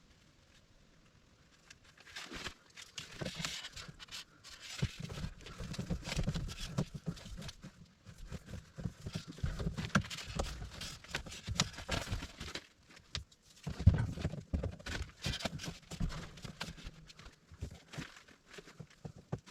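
Electrical cable being pulled and handled: irregular rustling, scraping and light knocks, starting about two seconds in.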